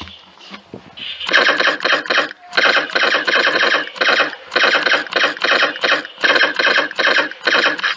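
MP-9-LT laser tag blaster firing its electronic shot sound effect in repeated short bursts of rapid shots, starting about a second in.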